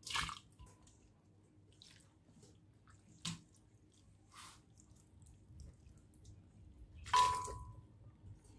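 Boiled spaghetti and vegetables with their cooking water going into a glass blender jar, with the blender's motor off. A few separate wet plops and splashes; the loudest comes near the end with a brief ringing clink.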